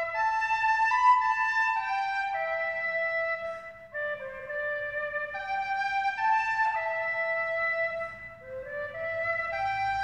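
Instrumental music: a melody played on a woodwind, in held notes of about half a second to a second, with short pauses between phrases about four seconds in and again after eight seconds.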